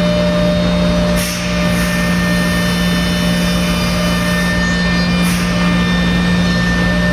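Five-axis CNC router's spindle running steadily as it mills a large block: a constant hum and whine. Brief hissing bursts come about a second in and again about five seconds in.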